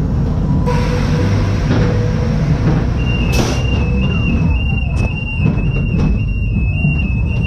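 Ghost train car running along its track with a heavy low rumble. From about three seconds in, a high two-note electronic beep alternates about twice a second. A few sharp knocks come as the car bangs through the swing doors out of the ride.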